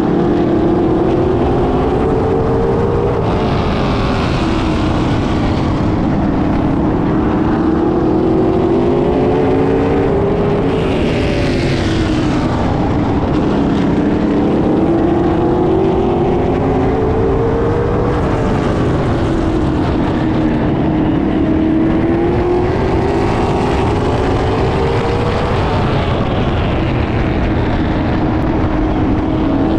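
Late model stock cars racing on a short oval track, their V8 engines running hard. The engine pitch climbs along each straightaway and drops into each turn, a cycle roughly every seven to eight seconds, and cars pass close by a few times.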